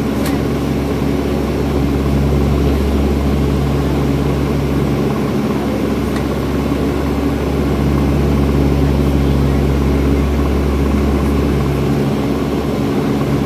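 Turboprop airliner's engines and propellers heard from inside the cabin on final approach: a steady low drone with several held tones over a constant rush of noise.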